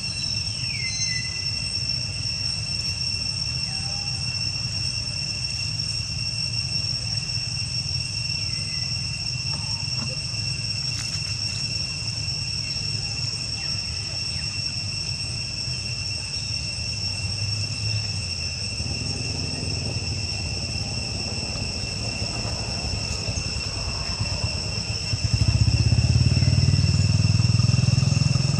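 A steady insect drone, one high even pitch with a second, higher one above it, over a low rumble that grows much louder a few seconds before the end. A few short falling whistled calls come near the start and again later.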